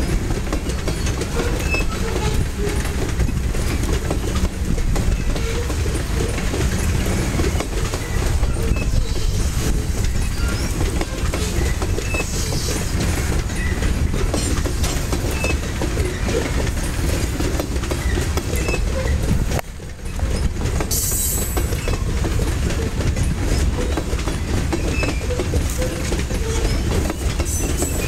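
Covered hopper cars of a freight train rolling past at a steady speed: a continuous rumble and clatter of steel wheels on the rails.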